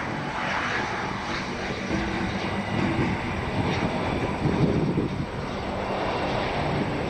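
Turbofan engines of a large four-engine military jet running steadily, a continuous jet noise that swells slightly about four to five seconds in.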